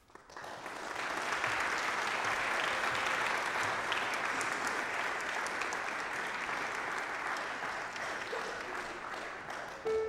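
Audience applauding, swelling in over the first second and easing off slightly toward the end.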